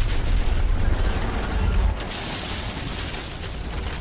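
A light plane crash-landing and sliding on its belly across desert ground. A heavy low rumble runs for about two seconds, then gives way to a rushing, gritty hiss of sand and dust against the airframe.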